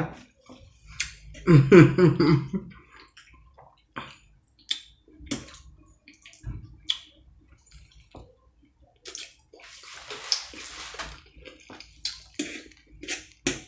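Close-up eating sounds: wet chewing and mouth noises, with sharp clicks of a metal fork against a metal sheet pan. There is a brief murmur about two seconds in and a longer wet, hissing stretch of eating noise about ten seconds in.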